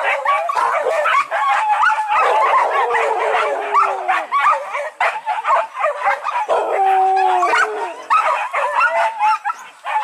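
A pack of hunting dogs barking and baying on a wild boar hunt, many voices overlapping without pause. Long drawn-out cries rise out of the din, one falling in pitch about two to four seconds in and one held steady past the middle.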